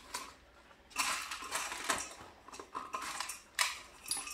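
A hand rummaging in a small stainless-steel bowl of dog treats, with a run of clinks and rattles starting about a second in.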